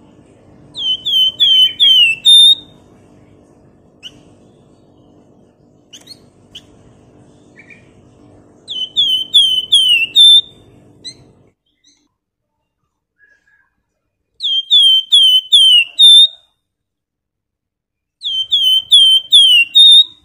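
Caged flamboyan (Horsfield's babbler) singing loud, repeated phrases: each a run of four or five quick downward-slurred whistles ending on a short higher note, given four times with pauses between. A faint low hum underneath stops about halfway through.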